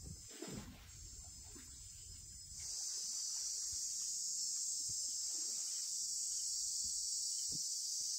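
Steady chorus of shrilling insects, growing louder about two and a half seconds in.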